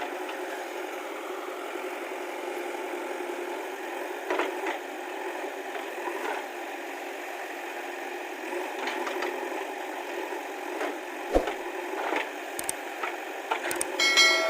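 JCB 3DX backhoe loader's diesel engine running steadily, with scattered sharp knocks and rattles from the machine working. The loudest knock comes about two-thirds of the way in, and a metallic clank with a brief ringing comes near the end.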